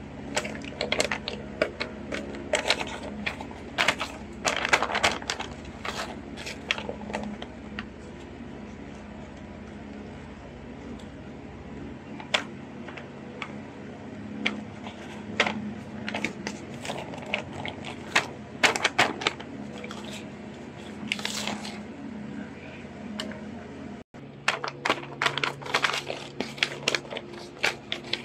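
Sheets of paper rustling and crinkling as they are handled and leafed through, in irregular clusters, over a steady low hum.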